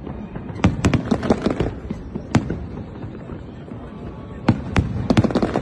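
Fireworks shells bursting: a quick run of sharp bangs about a second in, a single bang a little after two seconds, and another quick run of bangs near the end.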